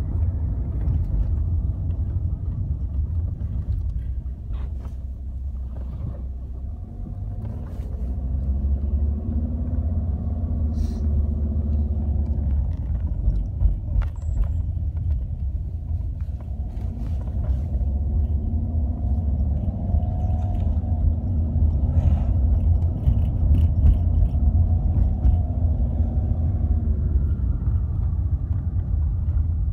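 Car driving, heard from inside the cabin: a steady low rumble of road and engine noise. The engine note rises and falls a few times as the car speeds up and slows, with a few light knocks and rattles.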